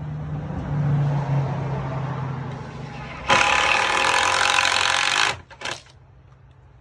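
A low steady hum, then a cordless power drill driving a screw: a loud whine that starts suddenly, runs for about two seconds and stops abruptly, followed by one short burst.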